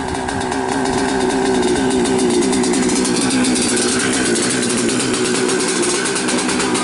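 Yamaha RX-King's single-cylinder two-stroke engine, in bleyer drag-race tune, running at steady held revs. The pitch wavers slightly and the level rises a little over the first second.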